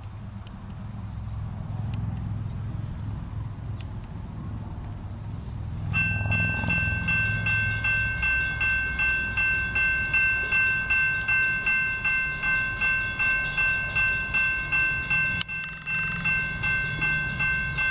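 Low rumble of an approaching CSX GE ES44AH diesel locomotive. About six seconds in, a grade-crossing bell starts ringing about twice a second, each strike decaying before the next.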